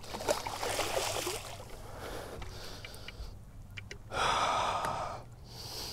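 A person breathing hard close to the microphone, with a long, loud exhale about four seconds in.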